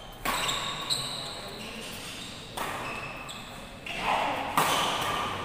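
Badminton rally in a large hall: racket strikes on a shuttlecock, with sharp hits about a second in and another near the end, over voices on and around the court.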